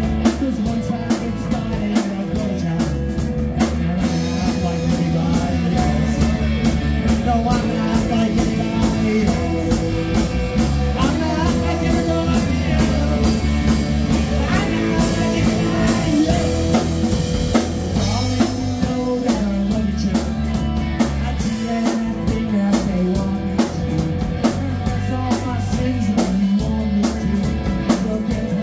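Rock band playing live: two electric guitars, electric bass and a drum kit, with a sung lead vocal.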